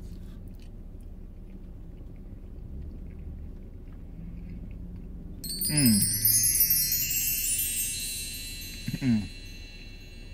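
A bright, shimmering chime, many high ringing tones at once, sets in suddenly about halfway through and rings out over about three seconds, the kind of sparkle sound effect added to mark a tasty bite. Twice during it the eater gives a short low 'mmm' whose pitch falls.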